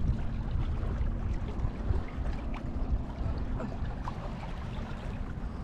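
Water gurgling and lapping against the hull of a moving boat, over a steady low rumble of wind on the microphone.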